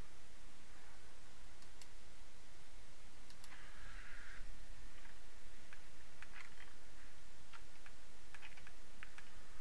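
Scattered computer mouse clicks, a few at a time and more often in the second half, over a steady low hum and hiss. A short soft noise comes about three and a half seconds in.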